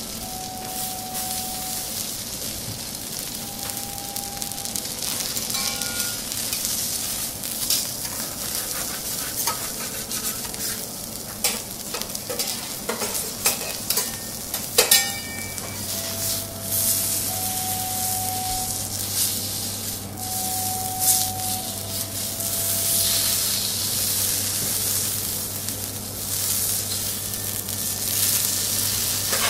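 A thick Akita beef steak sizzling steadily on a hot steel teppanyaki griddle. About halfway through there are a few sharp clicks and taps of the chef's metal utensils on the griddle.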